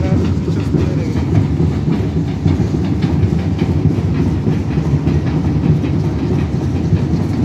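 Drumming and clatter of pilgrim dance troupes: a loud, dense, continuous din with a strong low rumble and faint evenly spaced clicks on top.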